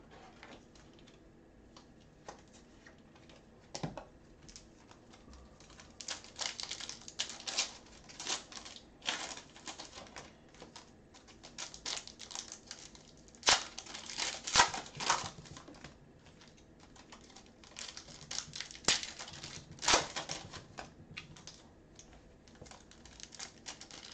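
Foil trading-card pack wrappers being torn open and crinkled by hand, with cards handled on a table. It is a run of quick crackles and clicks, sparse at first, that thickens about six seconds in and goes on in quick spurts with a few sharper clicks.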